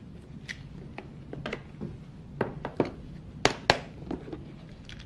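Light taps, clicks and knocks as medicine is handled and put into a first aid kit, a few sharper clicks in the middle.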